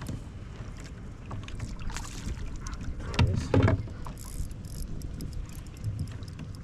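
Fishing gear knocking and clattering on a plastic kayak over a low rumble of wind on the microphone, with the loudest knocks a little over three seconds in as the landing net is set down in the kayak.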